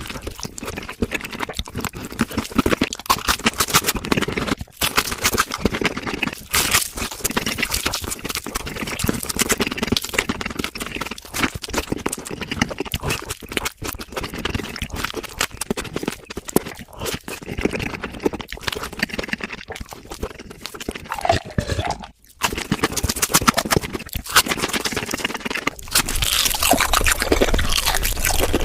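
Close-miked mukbang eating sounds sped up four times: a dense run of rapid chewing clicks and mouth noises. There is a brief break about three quarters of the way in.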